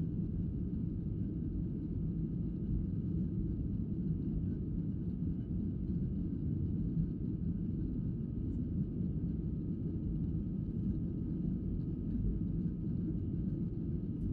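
Jet airliner cabin noise in flight, heard from a window seat: a steady low rumble of engines and airflow with a faint high whine.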